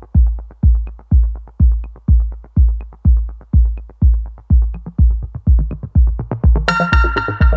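Electronic background music with a steady kick-drum beat, about two beats a second; a bright synth melody comes in near the end.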